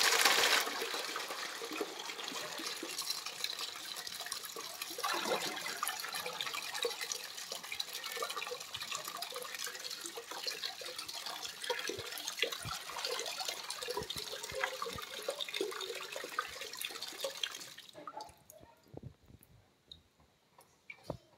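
Water pouring in a steady stream from a metal kettle's spout into a plastic basin already holding water, stopping near the end.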